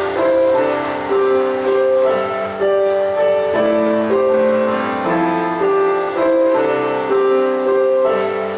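Instrumental music with a keyboard playing steady broken chords, a new note about every half second.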